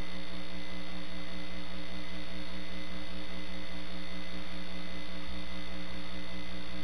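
Steady electrical hum over a hiss, at an even, unchanging level, with no voices.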